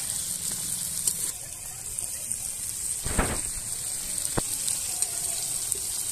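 Eggplant and fish fat (macher tel) sizzling steadily in hot oil in a wok. A metal spatula makes a louder scrape about three seconds in and a sharp click a second later.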